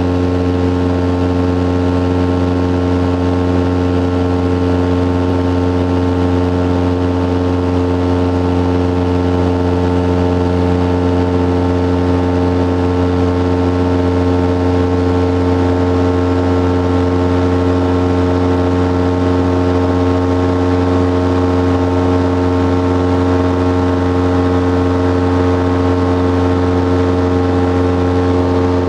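Titan Tornado light aircraft's engine and propeller droning at a steady cruise setting, with no change in pitch or level.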